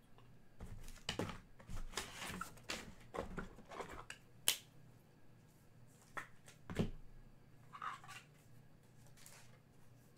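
Trading cards and their pack wrappers being handled: an irregular run of short rustles, slides and clicks, with the sharpest snap about four and a half seconds in.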